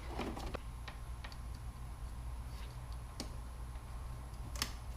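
Scattered light clicks and ticks as the clips on a Roush cold air intake's air box are unfastened by hand, over a low steady hum.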